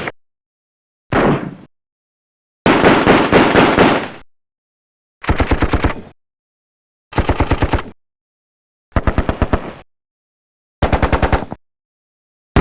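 A series of machine-gun sound effects: six separate bursts of rapid automatic fire, each under a second long except one of about a second and a half, with silence between them.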